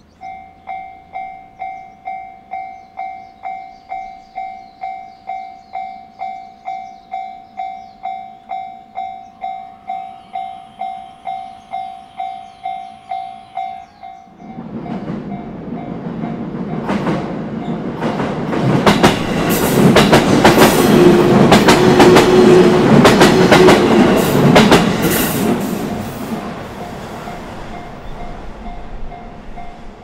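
Japanese level-crossing warning bell starts ringing in a high, even electronic tone, about two strikes a second. About halfway through, a JR Ome Line electric train passes over the crossing, its wheels clacking over the rail joints, loudest around twenty seconds in, then fading. The bell keeps ringing faintly under the train until near the end.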